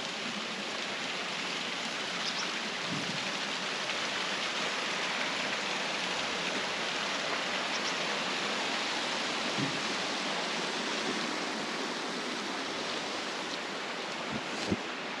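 Shallow mountain stream running over rocks, a steady, even rushing hiss, with a couple of soft knocks near the end.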